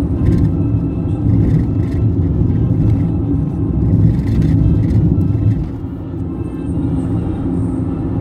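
Road and engine noise heard inside a moving car's cabin: a steady low rumble with a few faint rattles, easing slightly about two-thirds of the way through.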